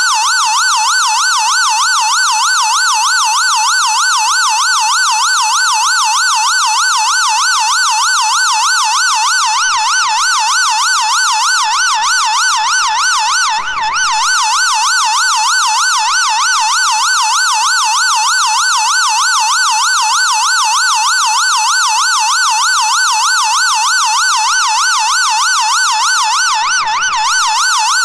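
Synthesized ambulance siren sounding a fast yelp, its pitch swinging rapidly up and down a few times a second without a break. Its level dips briefly about halfway through.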